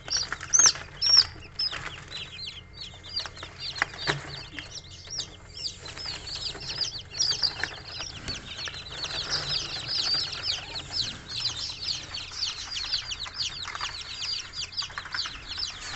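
A brood of newly hatched bantam chicks peeping without a break: a dense chorus of short, high, downward-sliding cheeps, with a few louder peeps about a second in.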